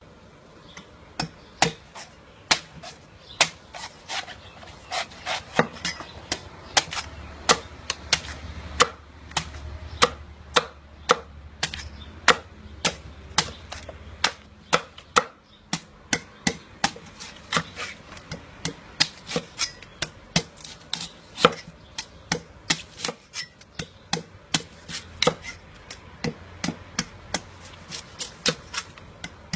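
Large knife chopping the husk off a green coconut, the blade striking through the husk into a wooden chopping block in quick, uneven chops of about two a second.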